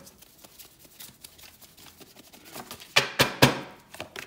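Tarot cards being shuffled by hand: a run of light card clicks, then a few loud, sharp slaps about three seconds in.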